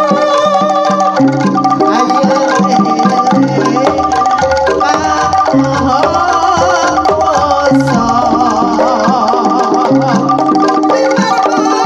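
Javanese jaranan dance music played loud through a large outdoor sound system: hand drumming and gamelan percussion under sustained melody notes and a wavering melody line. A deep low tone sounds from about four to eight seconds in.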